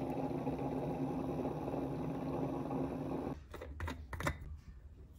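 Buydeem instant hot water dispenser running steadily as it fills a glass bottle, cutting off suddenly a little over three seconds in. A few light clicks and knocks follow as the plastic lid is handled onto the bottle.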